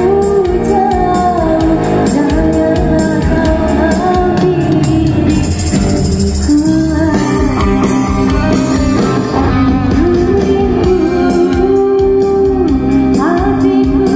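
Live band music: a woman sings a pop ballad into a microphone, backed by drums and guitar over a steady beat.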